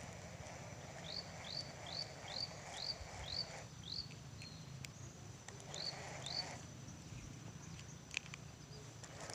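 A bird calling: a run of about seven short chirps, each sweeping up and then levelling off, roughly two a second, then two more after a pause, over a faint steady high-pitched whine and a low rumble.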